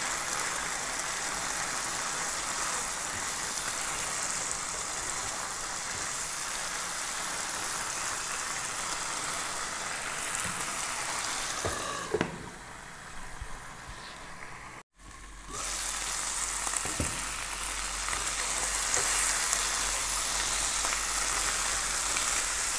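Marinated chicken pieces sizzling as they fry in a nonstick pan, with a silicone spatula stirring, while the marinade's liquid cooks off. About halfway through a glass lid knocks down onto the pan and the sizzle turns quieter; after a moment's break the sound comes back as a louder sizzle.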